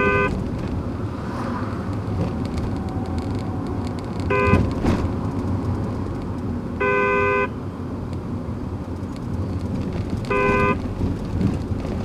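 Car-horn honks played from a speaker in the back of a car: four blasts, three short and one longer about seven seconds in, over the steady running noise of the car.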